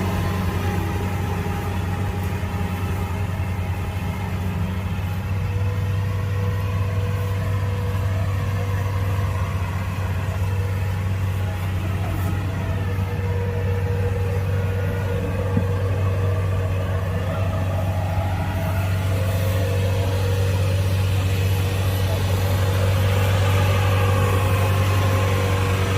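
Kubota track-type combine harvester running with a steady, even engine drone.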